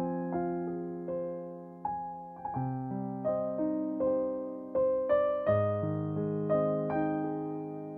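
Background music: a slow, gentle piano piece, single notes and chords struck about once or twice a second and left to fade, with deeper bass notes joining partway through.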